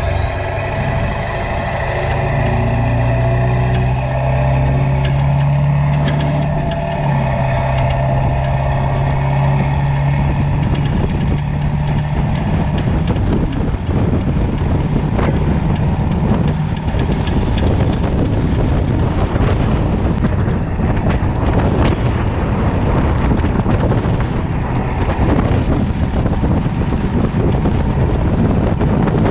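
Ford pickup's 7.3 Power Stroke diesel V8 pulling a loaded trailer at road speed, a steady low drone with a high whistle rising over the first few seconds. After about twelve seconds wind rushing over the microphone covers most of the engine.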